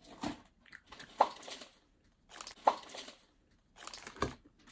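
A person chewing a chocolate candy close to the microphone: irregular soft mouth noises with a few sharper clicks and a little rustling.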